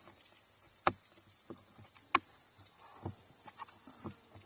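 A steady, high-pitched insect chorus, with a few sharp clicks and knocks over it, the two loudest about one and two seconds in.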